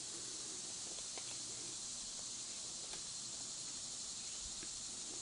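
Steady background hiss with a few faint soft ticks as a crochet hook is worked through cotton yarn by hand.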